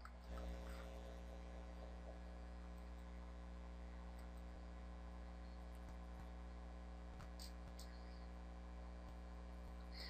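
Faint steady mains hum with a few soft clicks from a computer keyboard and mouse as a password is typed and a button is clicked.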